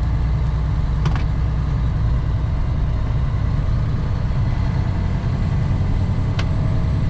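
Steady drone of a Western Star semi truck's diesel engine and road noise, heard inside the cab while cruising on the highway. There is a faint click about a second in and another near the end.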